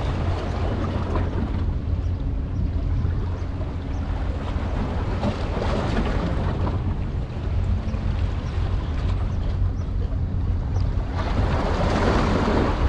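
Steady outdoor wind and water noise over the harbour: a constant low rumble with a hiss of moving water. It swells louder for the last two seconds or so.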